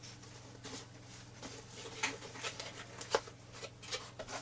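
A product box being opened and its contents handled: irregular rustling of packaging with light clicks and a couple of sharper small knocks.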